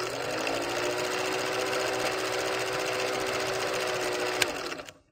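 Old film projector sound effect: a steady, rapid mechanical clatter over a hum. A sharp click comes near the end, then it fades out.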